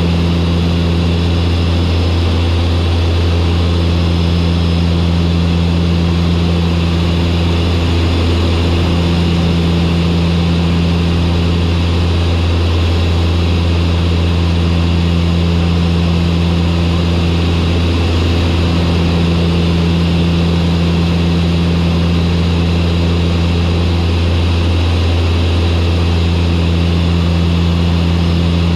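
Turboprop aircraft engines and propellers running steadily on final approach: a loud, even low drone over a hiss, with a throb that swells and fades about every six seconds.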